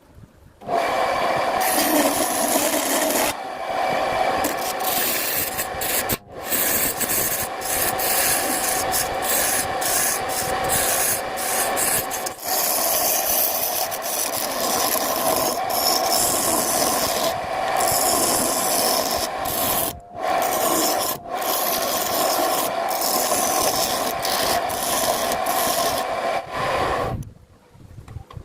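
A sappanwood blank spinning on a wood lathe while it is worked, giving a loud, steady rasping scrape. It starts about a second in, breaks off briefly a few times, and stops shortly before the end.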